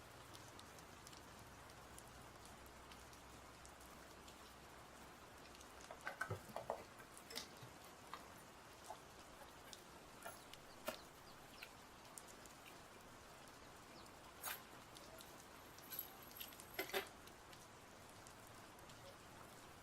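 Faint clicks, taps and crackles from parts and packaging being handled during an unboxing, coming in a few short clusters over a quiet background hiss.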